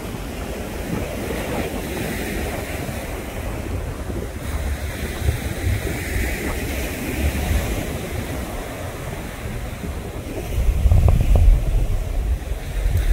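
Wind buffeting the microphone over a steady rushing noise, the low buffeting growing heavier and louder about ten seconds in.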